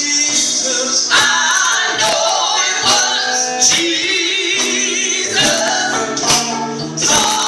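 Live gospel singing by a small group of men and women on handheld microphones, amplified, with sharp percussion hits throughout.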